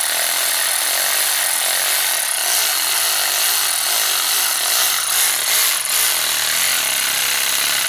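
Milwaukee cordless electric ratchet running steadily under load. It turns a Time-Sert installer tool that drives a thread-repair insert into a head bolt hole in the engine block.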